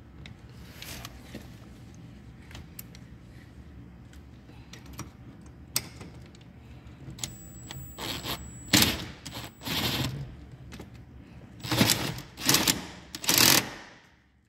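Bolts being worked in with hand tools: short bursts of rapid ratchet-like clicking in the second half, with scattered single clinks earlier, over a steady low hum.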